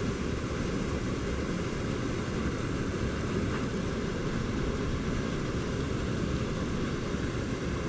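A steady rushing noise with a low rumble underneath, unbroken and unchanging throughout.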